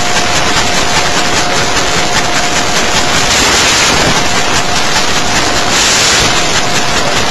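Loud, steady hiss of noise, with a faint high whine that drops out now and then.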